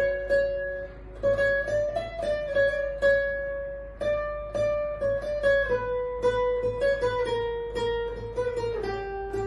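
Capoed nylon-string classical guitar played solo: a plucked melodic passage of single notes and short runs, each note ringing on into the next.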